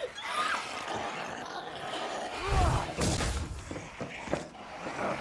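Film fight sound effects: several short rising-and-falling cries over thuds and crashes. A heavy low thud about halfway through is the loudest.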